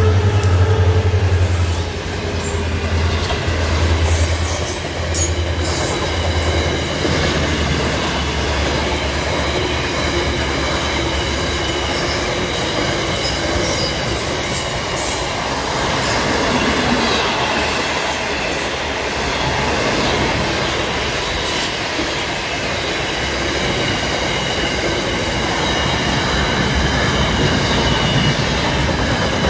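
Freight train passing close by: the diesel locomotive's low engine hum is loud at first and drops away after about two seconds, then the wagons roll past in a steady rumble of wheels on rail.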